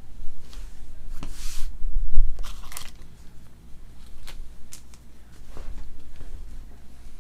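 Trading-card pack wrappers crinkling and tearing open, in several short rustling bursts with a few sharp clicks between them.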